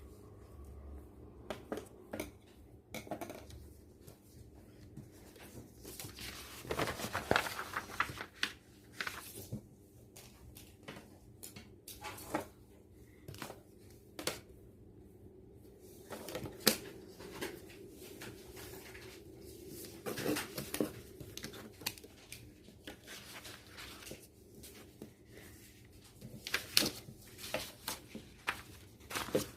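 Handling noises of paper craft work: irregular rustling, scraping and small taps, over a faint steady hum.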